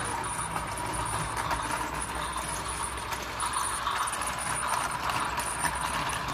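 Battery-operated toy steam train running around its plastic track: a steady rattling of the small motor and wheels, mixed with the locomotive's built-in train sound effects.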